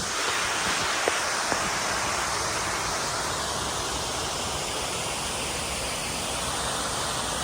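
Waterfall rushing, a steady roar of falling water, with two short clicks a little over a second in.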